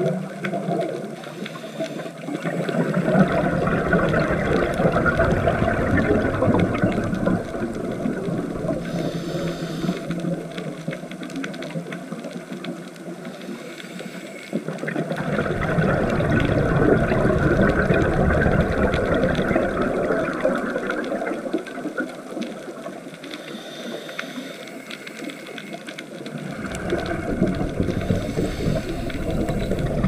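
Scuba breathing heard underwater through a regulator: long surges of rumbling, gurgling exhaled bubbles, three times about eleven seconds apart, with quieter stretches between.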